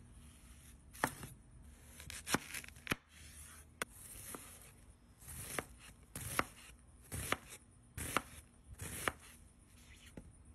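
Kitchen knife dicing a white onion on a cutting board: sharp knocks of the blade on the board, irregular and about one a second, with crisp cutting sounds between.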